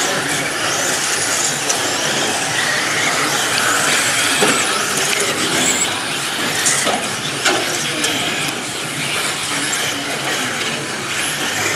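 Electric 1/10 RC buggies racing on a clay track: steady high-pitched motor and tyre noise, with a few sharp clicks about halfway through.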